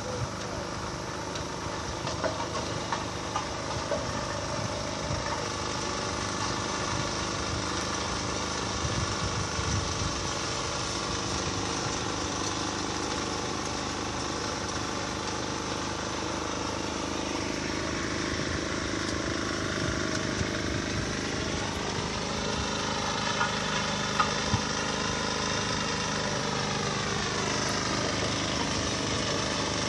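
A vehicle engine running steadily. In the second half its pitch drops, rises again and falls near the end as the engine speed changes, with a couple of brief knocks in between.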